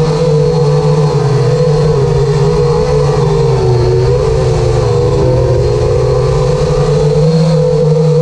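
Armattan Rooster FPV quadcopter's electric motors and propellers whining steadily, the pitch sagging lower about four to five seconds in and then climbing back as the throttle changes.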